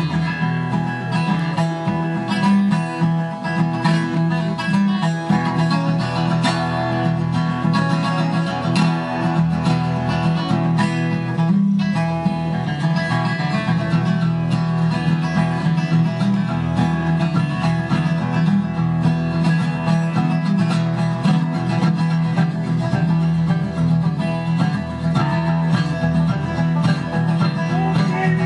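Live acoustic bluegrass band playing an instrumental passage with no singing: picked acoustic guitar and banjo over an upright bass line.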